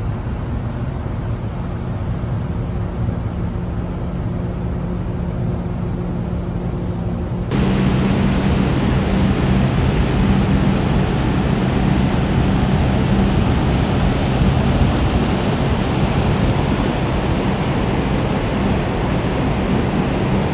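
Steady low hum of a large ferry's machinery and funnel exhaust under a broad rushing noise on the open deck. About seven seconds in, it turns suddenly louder and fuller.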